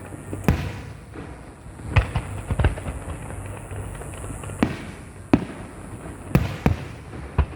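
Aerial firework shells bursting: about eight sharp booms at irregular spacing, some in quick pairs, with low rumbling tails.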